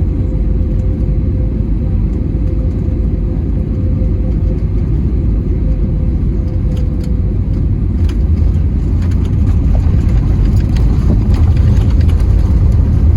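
Airbus A320neo cabin noise heard from a rear seat during landing: a steady, loud low rumble of engines and rushing air, with a faint steady tone that fades out about halfway through, growing louder over the last few seconds.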